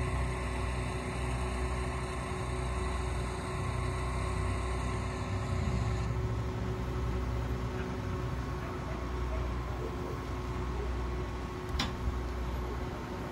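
Mobile crane's engine running steadily with a constant low hum while the crane holds and swings a suspended load. A single sharp click sounds near the end.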